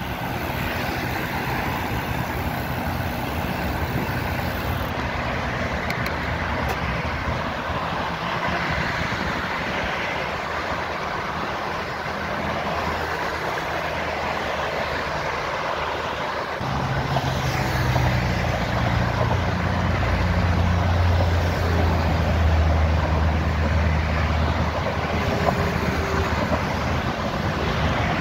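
Steady road traffic noise from a busy multi-lane highway. From a little over halfway in, the low engine drone of a passing heavy vehicle grows louder.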